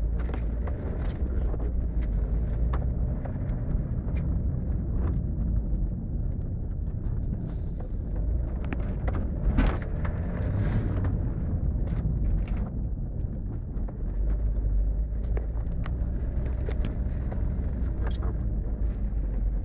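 Moving car heard from inside its cabin: a steady low engine and road rumble, with scattered light knocks and rattles and one sharper knock about ten seconds in.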